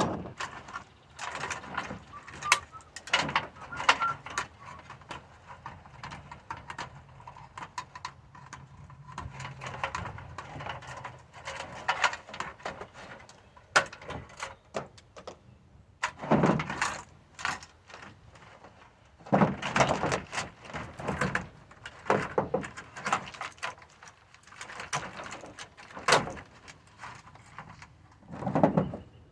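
Small hard scrap parts and tools being handled: irregular clicks, knocks and short scraping rattles, with several louder clattering bursts.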